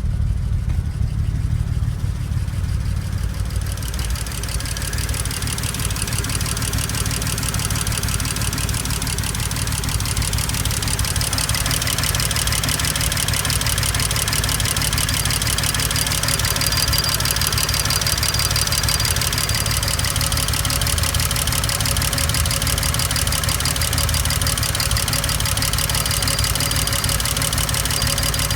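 BMW 335i's turbocharged inline-six idling steadily, with a fast, even ticking over the low engine hum that grows clearer about four seconds in.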